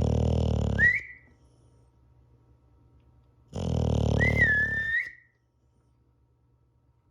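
Dog snoring: two long snores about three and a half seconds apart, each with a high whistle near its end.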